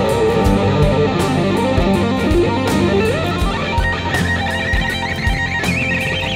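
Les Paul-style electric guitar playing a lead solo: fast runs of notes, a note sliding up in pitch about halfway, and held high notes with vibrato near the end, over a backing track with a steady drum beat.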